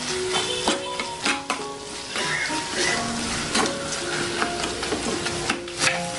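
Steel spoon stirring and scraping onion-tomato masala with ginger-garlic paste in an aluminium kadhai, the masala sizzling in hot oil as it fries. The spoon knocks and scrapes against the pan several times.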